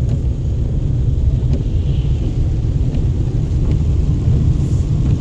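Steady low road rumble of a moving car heard from inside the cabin.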